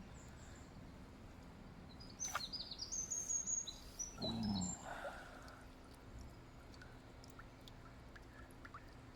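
A bird singing a quick run of high chirping notes for about two seconds, with a short lower call about four seconds in and a few faint chirps later.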